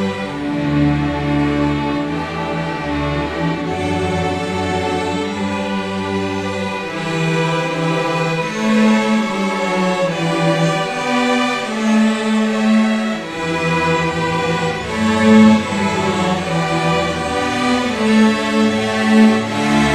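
A seventh-grade student string orchestra of violins and cellos playing a piece together in sustained bowed notes. The lowest bass notes drop away for several seconds in the middle and come back.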